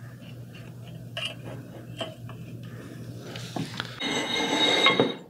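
Thin wires being fed through a plastic model kit and along an aluminium channel, making light clicks and scraping handling sounds. About four seconds in there is a louder stretch of rubbing.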